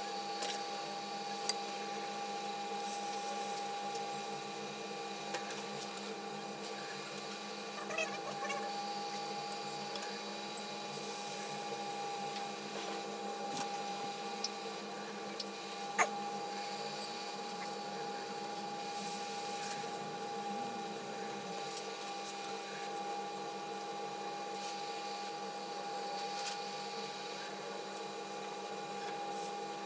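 Steady machine hum with a constant whine, unchanging throughout, with a few faint clicks and one sharper click about halfway through.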